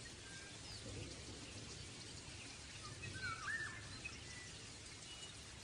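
Faint steady background hiss with a few short bird chirps, the clearest a quick up-and-down chirp about three and a half seconds in.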